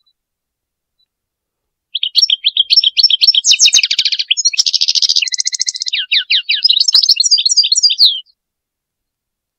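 European goldfinch song: after about two seconds of silence, a fast run of twittering notes with two buzzy trills in the middle, breaking off abruptly shortly before the end.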